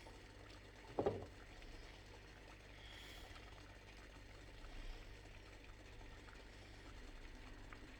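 A single dull knock about a second in, over faint room noise with a few small clicks.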